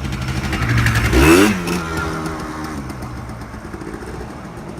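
ATV engine revving up briefly about a second in, then dropping back to a steady idle.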